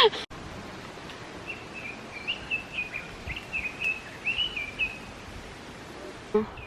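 A songbird singing a quick string of short chirping notes for about three and a half seconds, starting about a second and a half in, over a steady outdoor background hiss.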